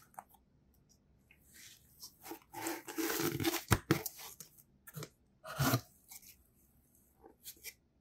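Cardboard box being opened by hand: bursts of scraping, crackling cardboard as the lid is worked loose and pulled off, with one sharp snap about halfway through and a few light ticks near the end.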